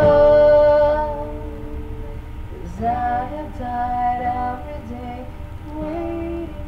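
A man singing long held notes in a high voice, with strummed acoustic guitar underneath.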